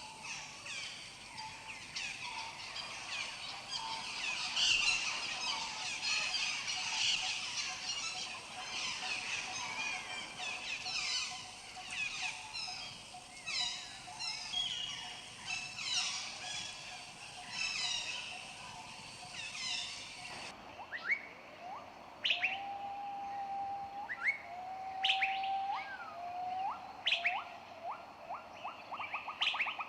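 Many birds chirping and calling at once in a dense chorus. About two-thirds of the way through it changes abruptly to fewer, separate birds: quick rising whistles, a few long whistled notes, and a fast trill near the end.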